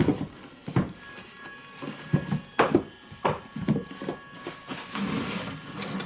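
Household items being handled on a kitchen worktop: a string of light knocks and clatters, then rustling near the end as paper cake cases and a small pot are picked up.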